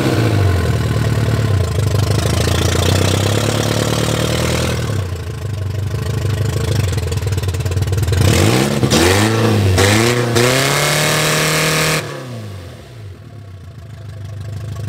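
Car engine running and being revved up and down several times in quick blips, then suddenly quieter near the end before building again.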